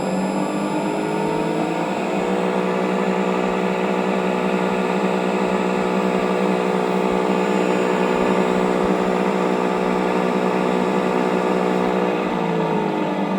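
Electric motor of a TruHone HR8 honer running. Its pitch rises over the first two seconds as it spins up, holds steady, then falls near the end as it slows. The owner says the motor has started knocking as if a bearing is worn out, and suspects moisture got in and corroded the inside.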